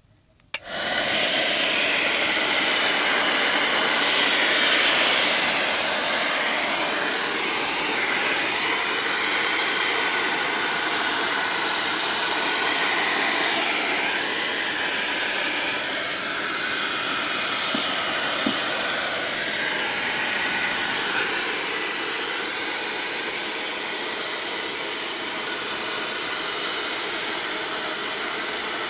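Repaired hair dryer switched on with a click about half a second in, then running steadily with a loud rushing of air and a faint motor hum, a little louder for the first few seconds; the test run shows it working again.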